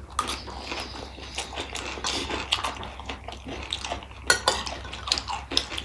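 Close-up eating sounds: metal spoons clinking and scraping on plates, with chewing of the gilo chatpate. A sharp clink about four seconds in is the loudest sound.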